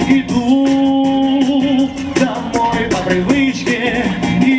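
Man singing two long held notes into a microphone, each ending in vibrato, over pop backing music with a steady drum beat.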